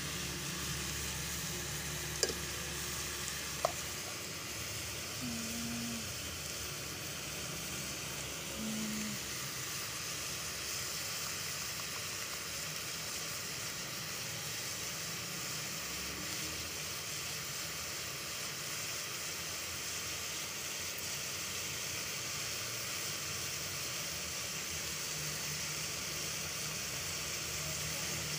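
Steady sizzling hiss of cauliflower, potato and chicken cooking in an aluminium pot, with two short sharp clicks in the first few seconds.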